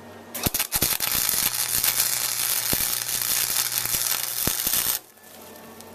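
Electric arc welding a steel exhaust pipe onto a muffler: the arc strikes with a few stuttering cracks, then holds a steady, loud crackle for about four seconds before cutting off abruptly.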